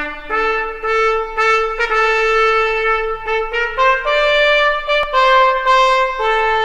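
Intro music: a solo trumpet playing a slow melody, a few short notes at first and then long held ones.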